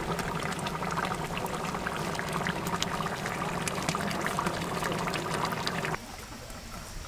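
Thick mutton gravy bubbling and sloshing in a large cooking pot, a dense run of small wet pops and crackles over a low steady hum. It cuts off abruptly about six seconds in.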